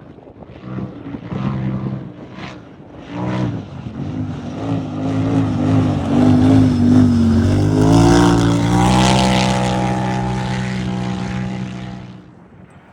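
Turbocharged UTV race engine revving hard: a few short throttle bursts, then a long, loud run at high revs with the pitch sliding down and back up, before it fades away quickly near the end.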